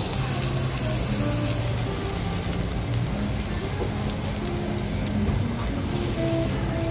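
Steady hiss of food frying on a teppanyaki iron griddle, with soft background music.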